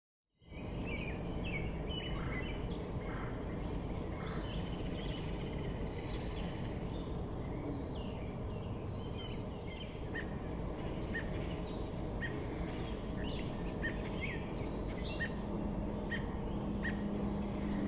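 Songbirds chirping and calling over a steady low background rumble: varied whistled calls at first, then from about ten seconds in a single short chirp repeating at a steady pace.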